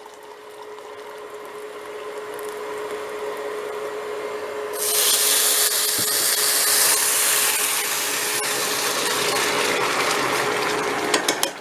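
Rice frying in hot ghee in a pan, a sizzle that grows louder; about five seconds in, boiling water poured into the hot pan sets off a sudden loud hiss and spitting, which eases after a couple of seconds into the steady noise of the water boiling up around the rice. A thin steady hum runs underneath.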